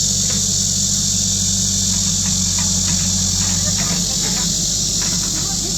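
Excavator's diesel engine running steadily with a constant high hiss over it, and a few faint ticks and scrapes. The low hum drops slightly about two-thirds of the way through.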